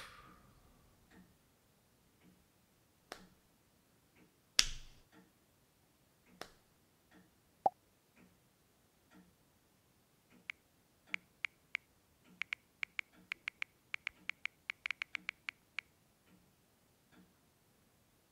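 Faint clock ticking about once a second, with a few single sharp clicks, the loudest about four and a half seconds in. From about ten seconds in, a quick run of crisp key clicks from typing on a smartphone lasts some five seconds.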